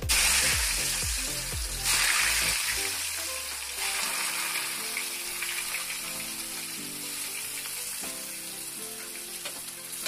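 Chopped bitter gourd dropped into hot mustard oil in an aluminium kadhai, sizzling loudly at once. A second handful going in about two seconds later brings another loud burst. The sizzle then eases into a steady frying sound as the pieces are stirred.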